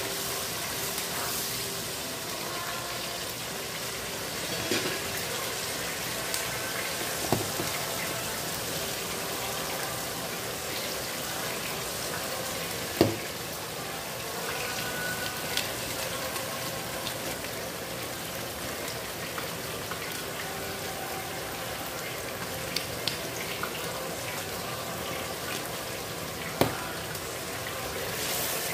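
Red buffalo-wing sauce sizzling and bubbling in a wok as a wooden spatula stirs it. A few sharp clicks break through, the loudest about halfway through and another near the end, likely the spatula knocking the pan.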